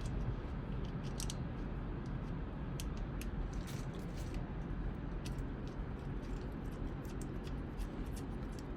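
Scattered light metallic clicks and ticks of a small bolt and hand tool being worked into a freshly repaired thread insert, over a steady low background hum.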